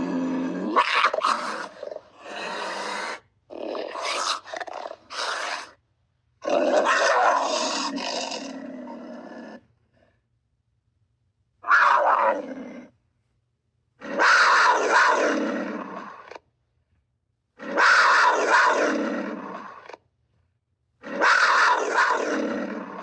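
Florida panther calling: a run of separate rough calls, each lasting one to three seconds, with short silences between.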